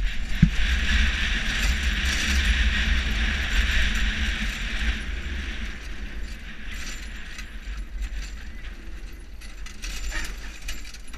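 Soap box cart rolling downhill, its wheels and body rattling and knocking, with wind rumbling on the microphone. Two sharp knocks open it, and the hiss eases off after about five seconds.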